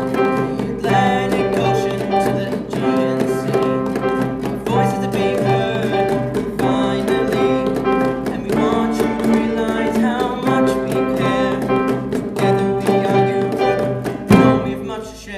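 Classical acoustic guitars strumming chords while a voice sings over them, the music dropping away briefly right at the end.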